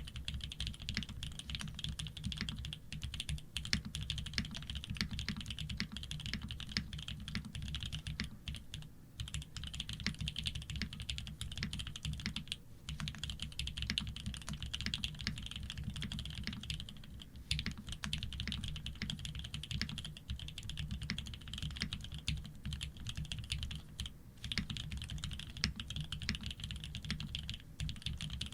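Continuous typing on a Shark60 custom mechanical keyboard with Fierce Girl switches, PBT keycaps and an aluminium plate, built without foam: a dense stream of key presses, briefly pausing twice in the first half.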